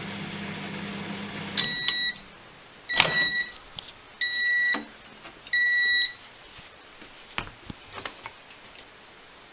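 Sharp microwave oven humming as it runs, stopping about a second and a half in, then giving four loud two-tone beeps about a second apart as the cycle ends. A sharp click comes with the second beep, and light knocks follow near the end as the bowl of heated potatoes is taken out.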